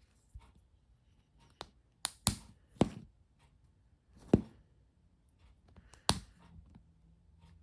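Hands handling small plastic toy pieces and capsules, making about seven sharp clicks and taps at irregular intervals.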